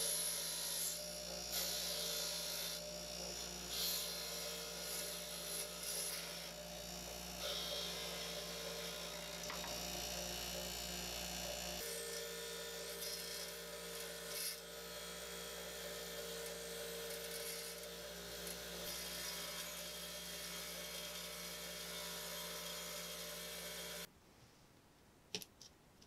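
Bench grinder running with a wire wheel scrubbing rust off a pocket knife's steel springs and blade: a steady motor hum under a hiss that rises and falls as the part is pressed to the wheel. The grinding stops abruptly near the end, followed by a couple of light clicks.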